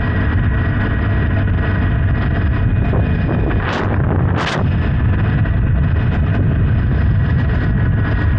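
Honda Hornet 900's inline-four engine running steadily under way, with heavy wind rumble on the microphone. Two brief whooshes come about halfway through.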